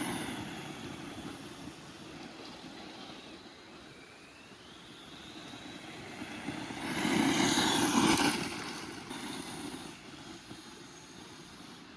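Absima AT3.4 brushless RC truggy driving on a 2S battery: the electric motor's whine rises and falls with the throttle, and the tyres spin on a low-grip surface. The sound swells loudest about seven to eight seconds in as the truggy passes close.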